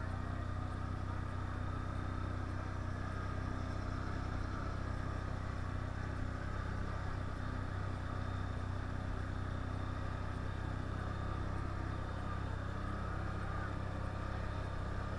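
Quad bike (ATV) engine running at a fairly steady speed while riding, with its low tone holding almost constant.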